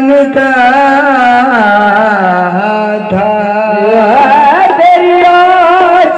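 Qawwali singing: a voice holding long, wavering ornamented notes without words, gliding upward about two-thirds through and settling on a higher held note.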